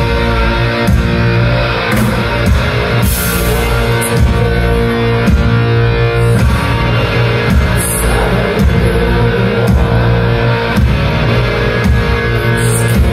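Live rock band playing loud: distorted electric guitar, bass guitar and a drum kit keeping a steady beat, with cymbal crashes every few seconds.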